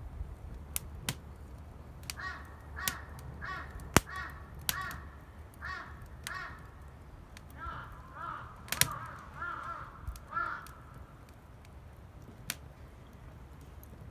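A crow cawing repeatedly: about seven evenly spaced caws, then a quicker run of caws that stops about ten seconds in. Sharp pops and cracks, the loudest near four and nine seconds, come through under the calls, in keeping with a wood campfire.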